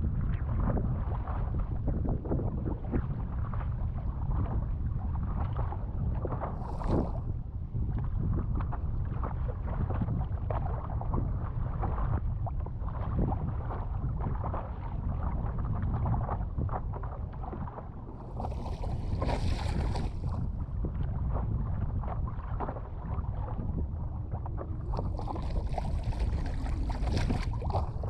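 Strong wind buffeting a GoPro's microphone on a stand-up paddleboard at sea, a constant crackling rumble, with water sloshing around the board. Two longer hissing rushes of water come about two-thirds of the way in and near the end.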